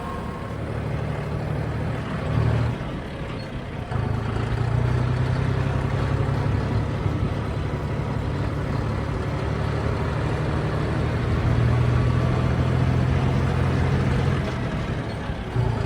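Tractor engine running steadily with a low drone, which dips briefly about three seconds in and again near the end.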